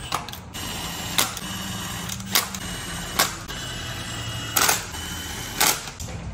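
Ratchet tightening the flywheel bolts onto the crankshaft, with sharp clicks at irregular intervals, roughly one a second.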